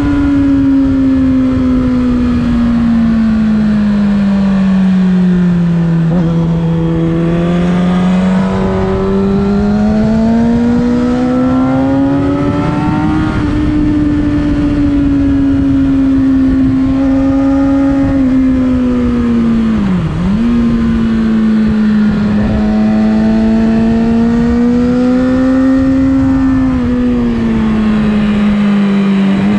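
Motorcycle engine running hard on a race track, its pitch rising and falling with the revs through the corners, with a quick sharp drop in pitch about two-thirds of the way through, over a constant rush of wind noise.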